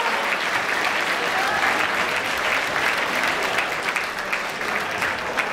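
Audience applauding steadily, many hands clapping together, easing off a little near the end.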